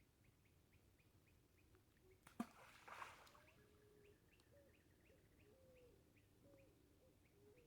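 Faint animal calls: a steady run of short high chirps about four a second, with scattered short low calls. A sharp knock comes about two and a half seconds in, followed by a brief rustle.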